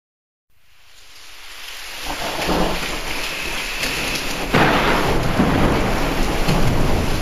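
Rain-and-thunderstorm sound effect at the start of a karaoke backing track. Steady rain fades in from silence over the first couple of seconds, and a louder burst of thunder comes about four and a half seconds in.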